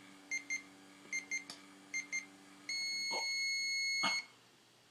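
Microwave oven running with a steady hum and short double beeps about once a second; then the hum stops and a single long beep sounds for about a second and a half, the signal that the cooking cycle has ended.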